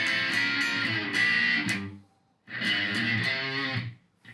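Electric guitar played through a Korg A5 multi-effects processor set to its distortion mode: two short phrases separated by a gap of about half a second.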